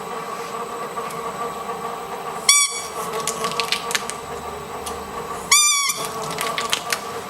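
A squeaky dog toy squeaks twice, about three seconds apart, each a short high squeal, over a steady hum and scattered crackling.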